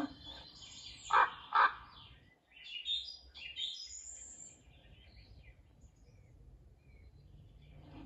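A crow gives two short, harsh caws in quick succession about a second in, followed by a couple of seconds of high chirping from smaller birds that fades to faint woodland background.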